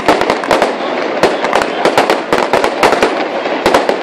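Fireworks display going off in rapid succession: many sharp bangs, several a second, overlapping with continuous crackling.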